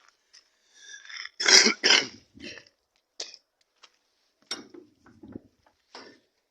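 A man coughs twice in quick succession, followed by a few short clicks and knocks.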